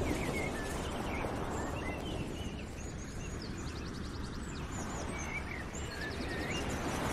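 Birds chirping, with short rapid trills, over a steady rushing background noise.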